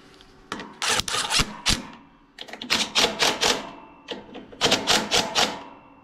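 Cordless drill-driver with a socket running carburetor mounting bolts tight on a small mower engine. It rattles and clicks in three short bursts a second or two apart.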